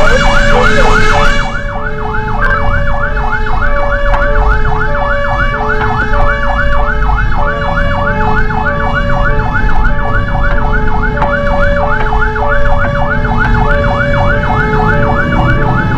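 Fire engine sirens running while responding to a call. A fast rising-and-falling yelp cycles about three times a second over a lower two-tone hi-lo siren that switches pitch about every half second, with the truck's engine rumbling beneath.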